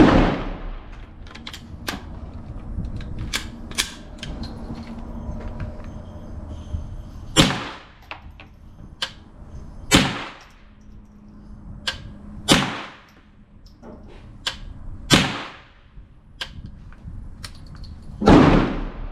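Single .22LR shots from an AR-15 pistol fitted with a CMMG .22LR conversion kit: six sharp cracks fired slowly, about two to three seconds apart after an opening shot and a pause. Lighter clicks and pops come between the shots.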